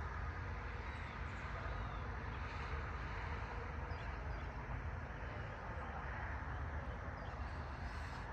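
Rural outdoor ambience: a steady low rumble and hiss, with a few faint, short bird chirps.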